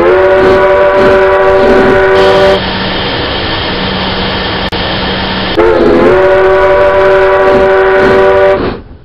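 Steam locomotive whistle blown in two long blasts of about three seconds each, several pitches sounding together. Between the blasts is a stretch of hissing noise with a faint low hum.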